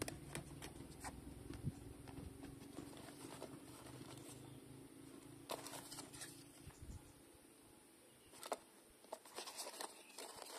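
Faint handling noise: scattered soft clicks and rustles as fingers handle a football boot and its cardboard hang tag. A low background hum drops away about three seconds in.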